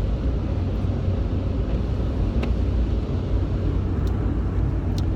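Steady road and engine noise of a vehicle driving on the freeway, heard from inside the cab, with an occasional faint click.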